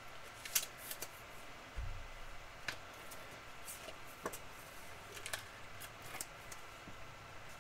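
Faint, scattered clicks and light handling noises of trading cards and packs being handled on a tabletop, with one soft low thud about two seconds in.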